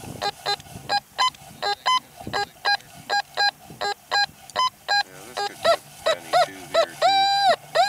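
Fisher F75 metal detector beeping as its coil is swept over the ground: a rapid string of short tones, about three a second, jumping between two pitches, with a couple of longer held tones near the end.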